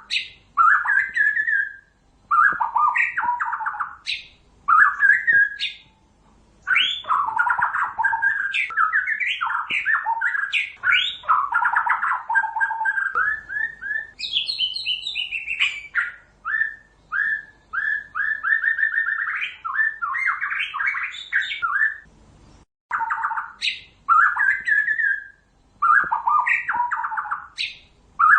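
White-rumped shama (murai batu) singing: a varied run of whistled phrases and quick trills, broken by short pauses, with a long stretch of quick repeated notes a little past halfway.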